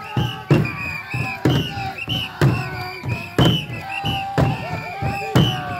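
Procession music with a drum beaten in a steady beat about twice a second, a high-pitched melody over it, and crowd voices.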